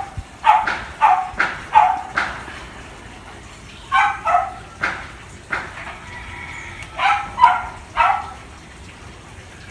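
A dog barking repeatedly in three bouts of short, sharp barks, with pauses of a second or two between bouts.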